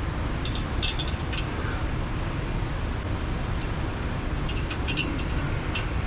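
Scattered light metallic clicks and taps of an Allen wrench working a fitting on a steam-heater valve, a few near the start and a cluster near the end, over a steady low rumble.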